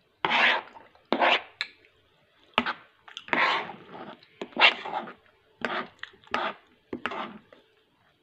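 A fork scraping and scooping food on a plate while eating, in a series of short scrapes about every half second to second, mixed with chewing.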